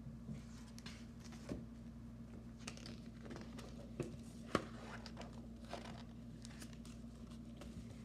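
Quiet paper rustling and a scattering of soft clicks and taps as a spiral-bound Braille picture book is handled, over a faint steady low hum.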